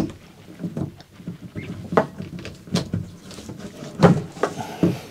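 Light clicks and knocks as a fuel gauge sender unit and its float arm are worked out through the opening in a diesel tank, the metal sender knocking against the tank's mounting hole; about six separate knocks, the loudest about four seconds in.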